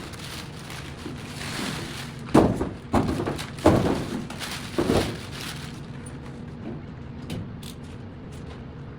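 Four sharp thunks spread over a couple of seconds about a third of the way in, over a low steady hum, followed by faint scattered light clicks.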